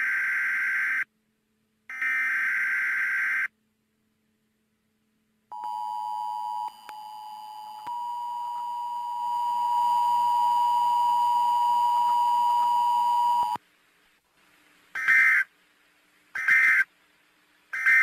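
Emergency Alert System test signal. First come two harsh, buzzing SAME header data bursts, each about a second and a half long. After a two-second gap the two-tone EAS attention signal (853 and 960 Hz) sounds steadily for about eight seconds. Then three short end-of-message data bursts come about a second and a half apart, the last one at the very end.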